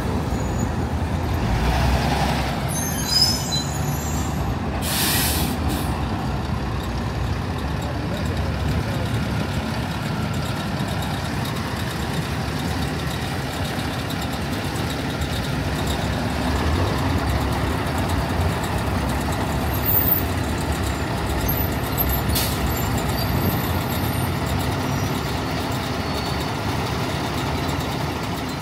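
City street traffic, with the engines of passing vehicles running steadily and a short, sharp hiss about five seconds in.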